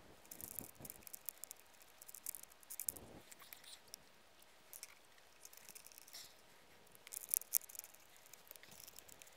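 Light metallic clicks and clinks in scattered clusters, the sharpest about seven and a half seconds in: copper bus bars and terminal nuts being handled and set by hand onto the terminals of LiFePO4 battery cells.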